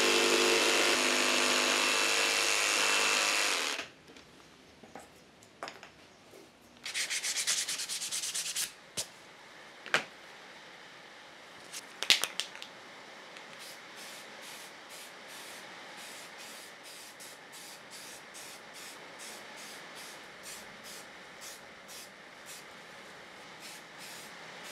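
AEG jigsaw cutting a curve in plywood, running steadily and stopping about four seconds in. After that it is much quieter: a few clicks, a short burst of hiss about seven seconds in, and a faint steady ticking through the second half.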